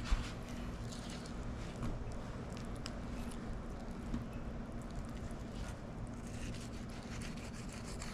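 Fillet knife slicing the meat off a pompano's rib cage, with faint scattered clicks, over a steady low background hum.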